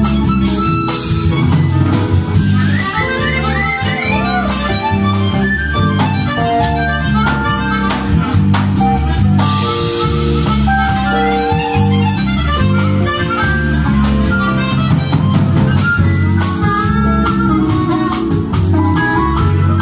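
Amplified harmonica playing a solo line with bent, sliding notes over a live band of electric bass, electric guitar and drums, the bass keeping a steady repeating groove.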